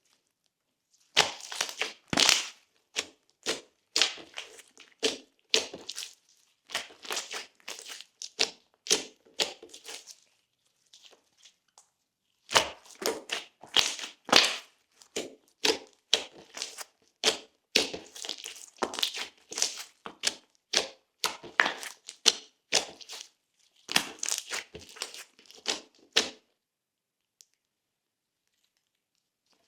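Glossy slime being squished, pressed and pulled by hand, with runs of sticky crackling clicks and pops. The runs come in bursts, pause about ten seconds in, and stop for the last few seconds.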